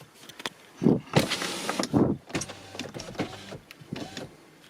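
Kia EV6's power windows and sunroof motors whirring as the windows are lowered and the roof tilted open, with several clunks as they start and stop.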